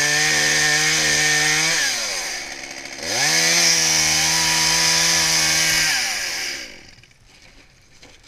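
Chainsaw revved twice at full throttle. Each time the pitch climbs quickly, holds high and steady for a couple of seconds, then drops away. The second run is the longer, and the saw falls quiet about seven seconds in.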